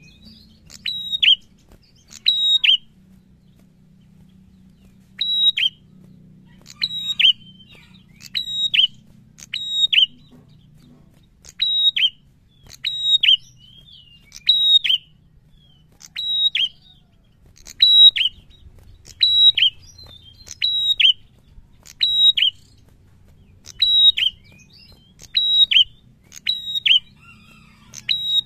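Caged prenjak (a rufous-headed tailorbird) calling over and over: sharp, piercing notes, each dropping quickly in pitch, given in twos and threes about every second and a half, with one longer pause a few seconds in.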